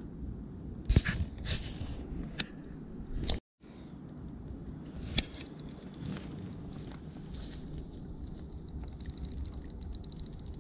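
Handling noise: a few sharp clicks and knocks over a steady low rumble, then a fast, even ticking from about eight seconds in.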